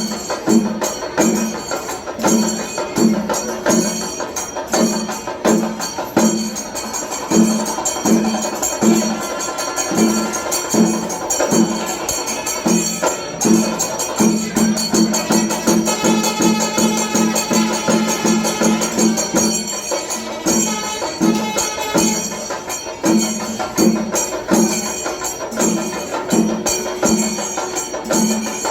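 Traditional percussion music from drums and small clashing cymbals in a steady, dense rhythm, with a low pulse about twice a second that is held as one long tone for a few seconds in the middle.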